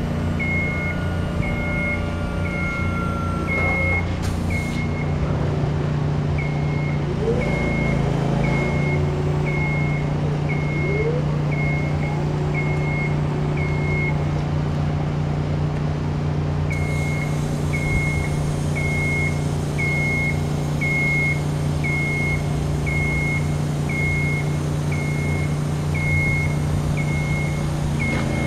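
Genie GS-2032 electric scissor lift running with its motion alarm beeping about once a second over a steady low hum as the platform is raised and lowered. The beeping pauses twice, briefly, as the lift stops.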